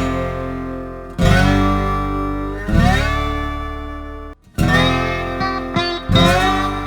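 Background music: guitar, with chords played about every second and a half and some notes sliding in pitch.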